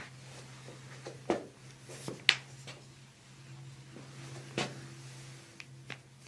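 Joints cracking during a chiropractic adjustment: a series of short, sharp pops, the loudest about two seconds in, over a steady low hum.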